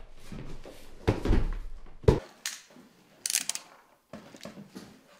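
A long cardboard shipping box being handled and set down. There is a heavy thud about a second in and a sharp knock about two seconds in, followed by a short scrape and lighter knocks and taps.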